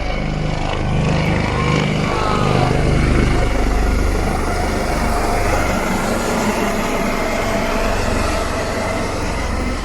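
Helicopter flying over with a steady rotor rumble, growing louder about three seconds in and then easing off.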